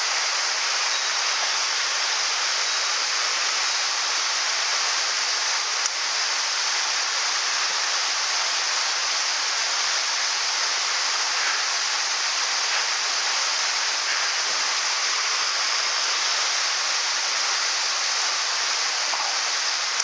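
Steady rushing of a small waterfall falling into a pool, together with a mountain stream running over stones.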